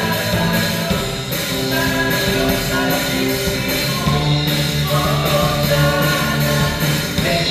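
Live rock band playing a song: drum kit with a steady cymbal beat, electric guitars and keyboard, with singing over them.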